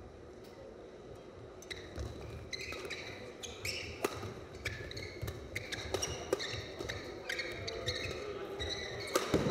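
A badminton doubles rally: quick, sharp racket strikes on the shuttlecock mixed with sneakers squeaking on the court mat. It gets busier from about two seconds in, with a loud hit near the end.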